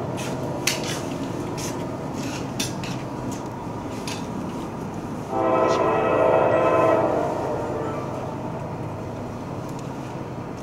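Diesel locomotive air horn sounding a chord, one blast of about two seconds about halfway through, over the low steady rumble of an approaching train. A few sharp clicks come in the first few seconds.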